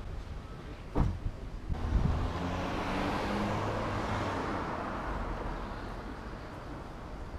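A car driving past on the street, its engine and tyre noise swelling about two seconds in and slowly fading. A short knock comes just before, about a second in.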